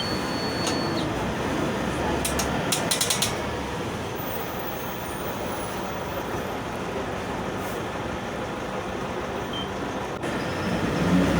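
VW 17-230 OD city bus running, its MAN D0834 4.6-litre four-cylinder diesel and ZF 6S-1010 gearbox making a steady noise. The gearbox is freshly reconditioned, which gives it an unusual roar. A brief cluster of rattling clicks comes about two to three seconds in.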